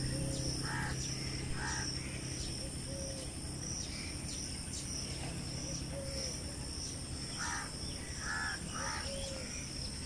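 Crows cawing: two harsh calls about a second apart, then a cluster of three or four near the end, over a steady high-pitched insect drone.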